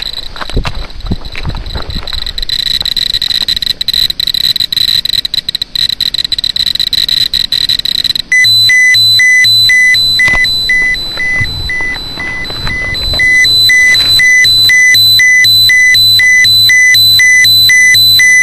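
Handheld radiation meter: irregular clicking over a steady high tone, then about eight seconds in a loud electronic alarm starts beeping about twice a second. The alarm signals a high dose rate, read out as about 15 microsieverts per hour.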